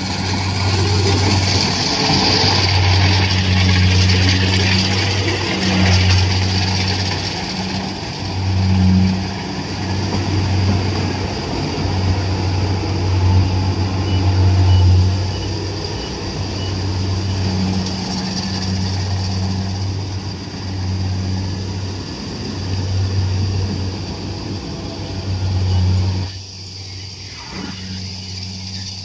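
Kubota DC-68G Harvest King Pro crawler combine harvester running while it cuts ripe rice: a steady low diesel engine drone over the rush of the threshing machinery, swelling and easing in stretches and growing quieter near the end.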